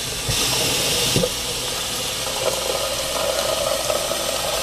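Kitchen faucet running, with water pouring steadily into a blender jar held under the tap as it fills with about 40 ounces of water.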